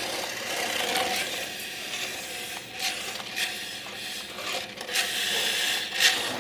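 Toy RC car running on a hard floor: its small electric motor whirring and wheels scraping, with several sharp knocks as it bumps into things, the loudest near the end.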